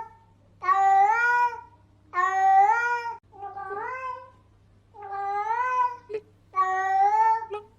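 A cat meowing over and over: five meows of about a second each, roughly a second and a half apart, each rising slightly in pitch before levelling off; the middle one is softer. A faint low hum lies underneath, and there are two brief clicks in the second half.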